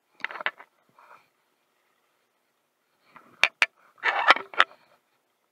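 Handling noise on a body-worn action camera: clusters of knocks, clicks and rubbing scrapes. A short cluster comes near the start, then two sharp clicks and a louder scraping cluster in the last two seconds.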